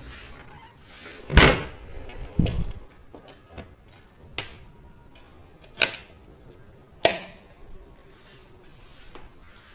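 Lid of a homemade plywood case shut with a loud wooden thump about a second and a half in, followed by a second duller thud a second later. Then three sharp clicks, a second or so apart, from the case's latches and fittings being fastened.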